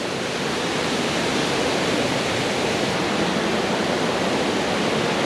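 Steady rush of water from a small river and waterfall tumbling over rocks.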